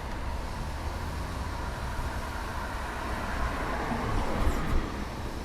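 Road traffic noise: a steady rumble, with a passing vehicle swelling and fading about halfway through and a couple of light knocks near the end.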